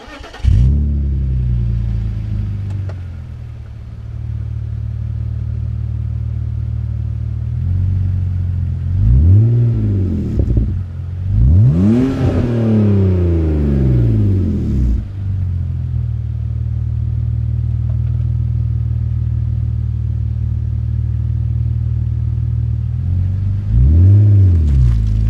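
A BMW 330ci's inline-six starts up and its exhaust flares, then settles to a steady idle within a few seconds. It is revved three times with quick blips, the middle one the highest and longest.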